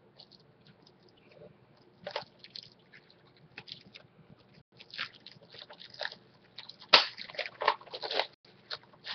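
Plastic shrink-wrap on a Blu-ray case being picked at and peeled off: irregular crinkling and crackling, sparse at first and busiest and loudest in the second half.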